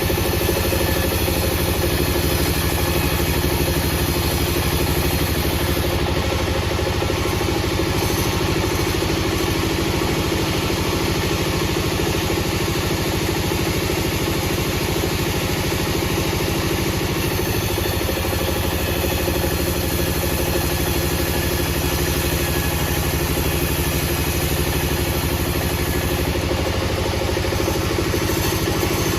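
Machinery engine running steadily at an even speed, a continuous drone with a constant rapid pulse.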